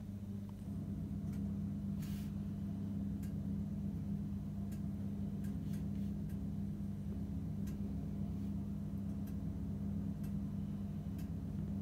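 Oven running with a steady low hum, with scattered faint ticks at irregular spacing.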